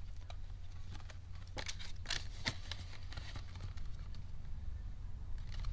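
Paper banknotes being handled and slid into a clear plastic binder pocket: scattered light rustles and soft taps at uneven times, over a steady low hum.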